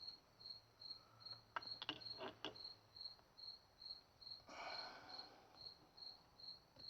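A cricket chirping steadily, about two or three high chirps a second, over near quiet. A quick run of sharp clicks comes about a second and a half in, and a short rustle about halfway through.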